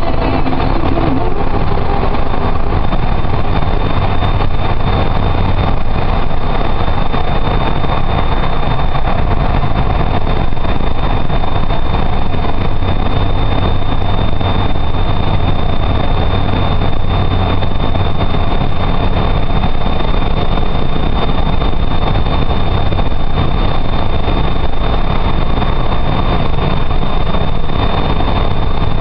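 Car driving steadily through a road tunnel, heard from inside the cabin: a loud, even rumble of engine and tyre noise, with a thin, steady high whine over it.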